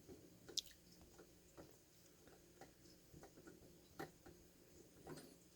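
Faint, scattered small metal clicks and ticks from a steel multi-tool's flathead screwdriver edge working the screw of a cover plate.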